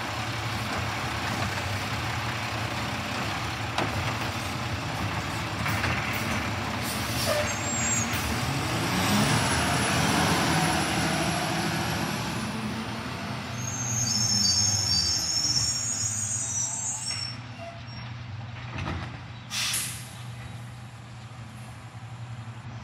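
Mack LR side-loader garbage truck's engine running, rising in pitch and getting louder as the truck pulls away about eight seconds in, then fading as it moves off, with air-brake hisses and a knock near four seconds in.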